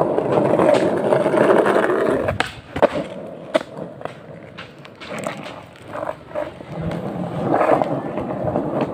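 Skateboard wheels rolling over rough concrete, a steady rumble that drops away after about two seconds. A few sharp clacks follow in the quieter stretch, and the rolling picks up again near the end.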